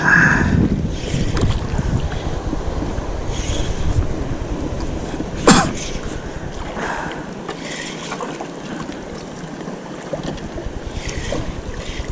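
Wind buffeting the microphone and water lapping around a small boat, with a single sharp knock about five and a half seconds in.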